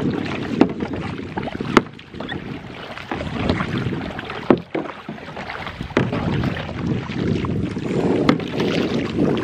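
Kayak paddle strokes dipping and splashing in the water, with wind buffeting the microphone and several sharp knocks.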